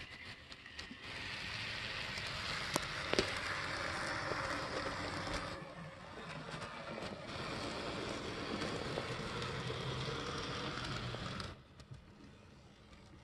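AZL Z scale Norfolk Southern SD70 model locomotive running on its track: a steady whirr of its small motor and gearing, with a couple of sharp clicks about three seconds in. The whirr dips briefly midway and falls away sharply near the end.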